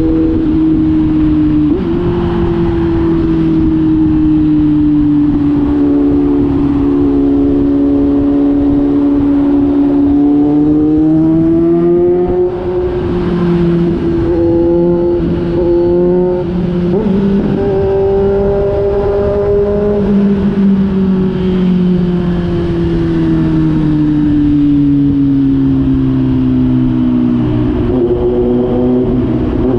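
Kawasaki Z900 inline-four engine running through an SC-Project GP1 aftermarket exhaust. The exhaust note stays steady for long stretches, steps up in pitch about two seconds in, rises twice midway, then falls slowly near the end as the revs drop.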